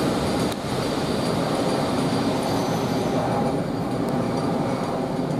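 GB Railfreight Class 69 diesel locomotive on a railhead treatment train rolling away: steady engine and wheel-on-rail noise, easing a little in the second half. Its wheels have bad wheel flats.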